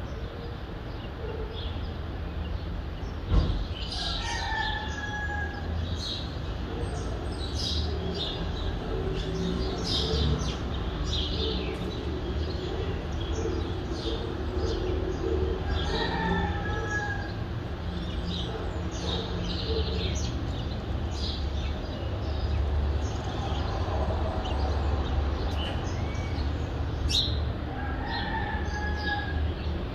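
Dawn chorus of small birds chirping over a steady low rumble of city traffic. A longer, falling call repeats three times, about twelve seconds apart. A single thump sounds about three seconds in.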